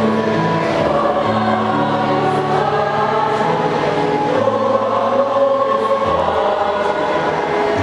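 School choir singing in harmony, holding long notes over low sustained tones, with the chord changing every second or two.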